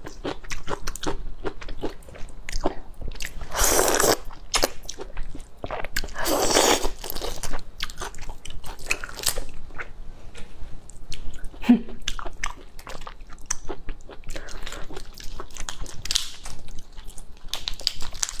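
The shell of a large raw soy-marinated prawn being cracked and peeled off by hand, close-miked: a dense run of wet crackles and snaps, with two longer rasping noises about four and six and a half seconds in. It comes away cleanly, the whole tail included.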